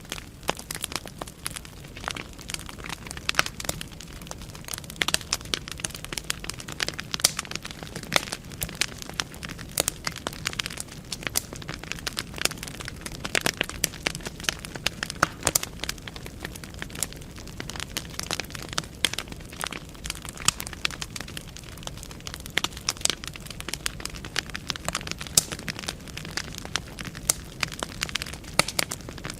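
Wood fire burning in a fireplace: logs crackling and popping with many sharp, irregular snaps over a low, steady rush of flame.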